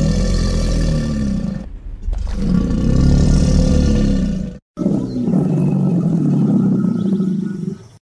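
Custom monster voice for a Zorgon, made by layering animal and monster recordings: three long, deep roars back to back, each two to three seconds. The second cuts off abruptly just before the third begins.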